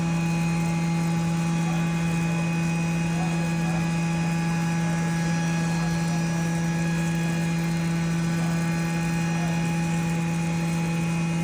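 Vertical machining center facing an aluminum part with a milling cutter: a steady machining tone made of a strong low hum with an octave above it and many fainter higher tones, holding even with no breaks.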